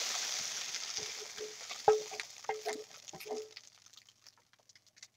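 Seared beef cubes sizzling in a hot frying pan, the sizzle fading away as they are scraped off into a pot of broth. A spatula knocks and scrapes against the pan a few times, with short ringing tones.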